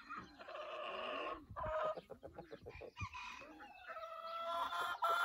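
Barnyard chickens calling: a rooster crowing and hens clucking, in a mix of short notes and longer calls, with a long held call near the end.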